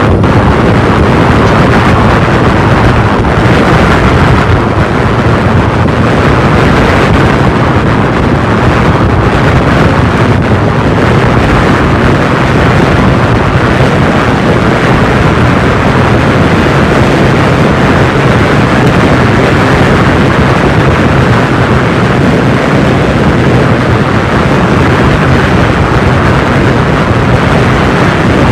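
Heavy, steady wind rush on an action camera's microphone as a Super73 Z1 electric bike runs flat out, speeding up from about 28 to 37 mph on a quarter-mile pull.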